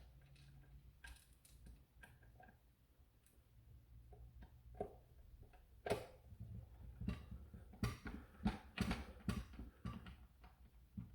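Faint clicks and knocks of plastic blaster parts being handled and pushed together, sparse at first and coming thicker in the second half.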